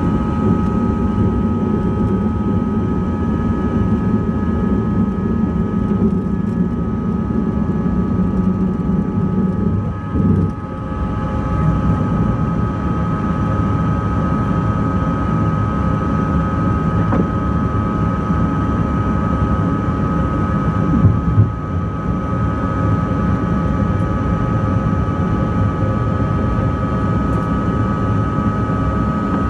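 Cabin noise of a CRJ200 regional jet at takeoff thrust: its rear-mounted GE CF34 turbofans give a steady high whine over a dense rumble through the takeoff roll and into the climb. The rumble dips briefly about ten seconds in, and a short loud knock comes about twenty-one seconds in.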